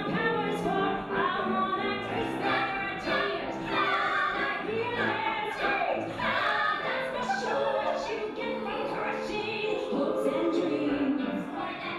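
Three women's voices singing a lively show tune together in harmony, with no break.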